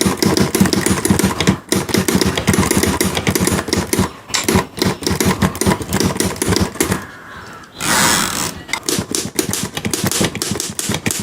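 Manual typewriter being typed on: rapid key strikes clacking several times a second, with a short pause about seven seconds in, then typing again.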